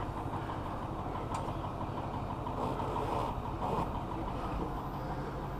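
A vehicle engine idling steadily.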